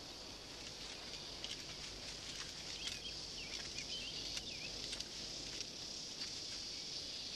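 Outdoor night-time-style ambience of insects chirping in a steady high hiss, with faint scattered bird chirps and a few light clicks.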